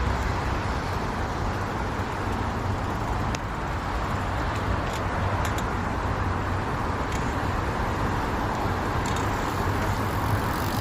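Steady roar of road traffic, with no distinct passing vehicle and only a few faint ticks.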